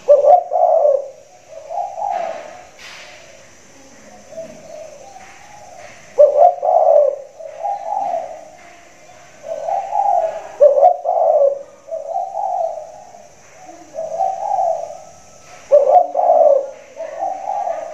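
Big-voiced spotted dove cooing: phrases of three or four coos, the first loudest, repeated every four to five seconds.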